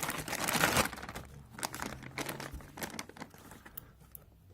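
Packaging being opened: a crinkling, tearing rustle, loudest in the first second, then fainter scattered clicks and handling noises.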